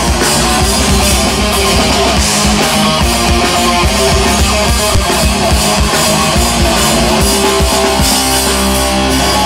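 Rock band playing live: electric guitars and a drum kit through the stage PA, loud and continuous.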